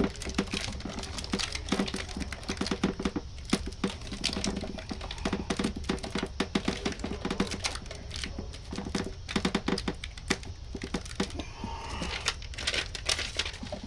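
Handling noise from a metal dryer vent pipe and fiberglass insulation being worked by hand: rapid, irregular clicking, rustling and crinkling over a low steady rumble.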